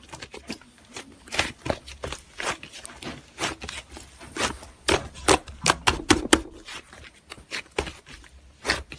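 A run of irregular short, sharp clicks and crackles, several a second, some louder than others.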